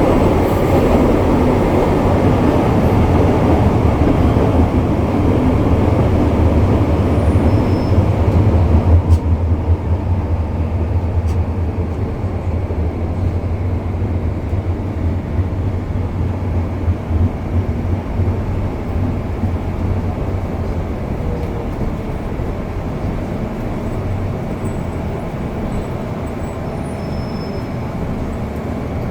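MTR Kwun Tong Line M-Train running, a loud steady rumble of wheels and motors. About nine seconds in, the higher part of the noise drops away and a lower, quieter rumble carries on.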